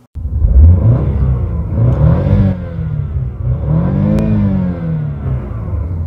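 Car engine revved while stationary, its pitch climbing and falling back twice, about two seconds apart.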